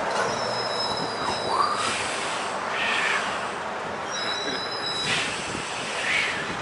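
Motor traffic rushing past close by on a highway, a steady loud roar of tyres and engines, with a high steady whine heard twice, in the first two seconds and again about four seconds in.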